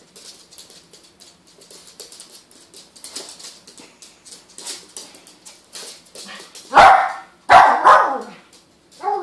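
Small poodle barking at a dancing plush chicken toy: faint clicks at first, then one loud sharp bark about seven seconds in and two more in quick succession just after.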